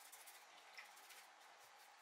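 Faint water splashing and swishing in a plastic tub as a metal part is scrubbed by hand, with a few soft irregular ticks over a low hiss.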